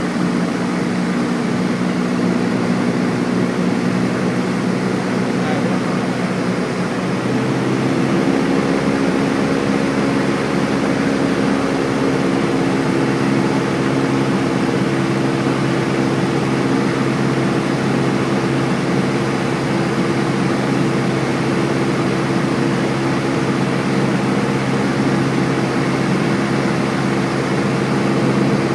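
Cessna 172's engine and propeller drone heard inside the cabin in cruise, steady and loud. About seven seconds in, the pitch steps up and stays higher, the engine speeding up.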